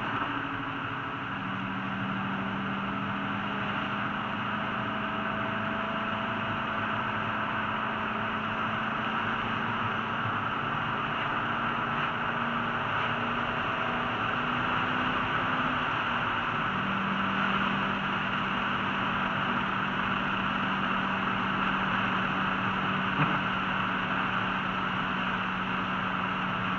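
Ford GT cruising, heard from inside the cabin: a steady engine hum under an even hiss of road and wind noise. The hum's pitch shifts briefly about a second in and again around the middle.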